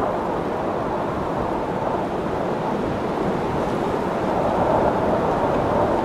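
Strong tropical wind blowing as a steady, dense rushing noise that swells a little about four to five seconds in.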